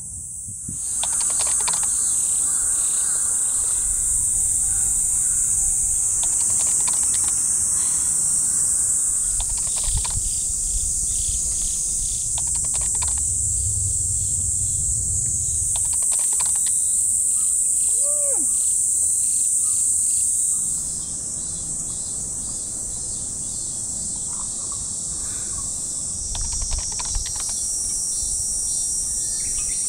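Chorus of summer insects: a steady, high-pitched buzzing drone, with one short falling bird-like call about two-thirds of the way through.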